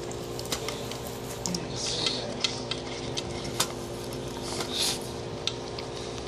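Welsh corgi licking an empty green plastic slow-feeder bowl: wet tongue laps with irregular small clicks and knocks against the plastic. She keeps licking the already-clean bowl because she is still hungry on a reduced diet.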